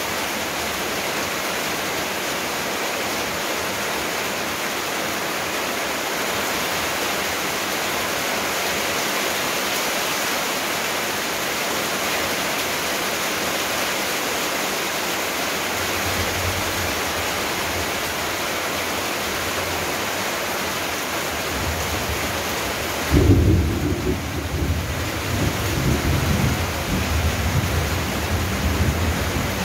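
Steady rain hissing, with thunder rumbling low in the second half: a faint roll starts past the middle, then a louder rolling peal about three-quarters of the way through that carries on to the end.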